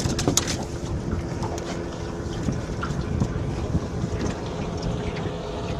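Wind buffeting the microphone on an open boat: a steady low rumble, with a few sharp clicks near the start.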